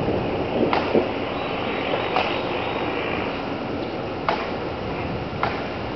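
Steady hiss of falling rain, with several sharp ticks a second or two apart.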